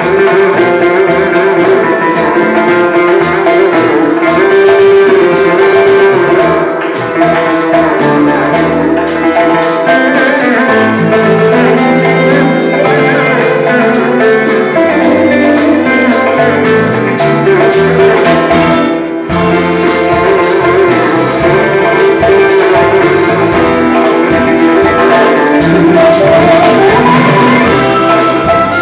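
Loud live Uzbek wedding music through a PA: a man singing over electric keyboard and doyra frame drum.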